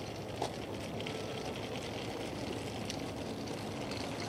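Steady low background rumble with a faint motor hum, and a couple of soft ticks.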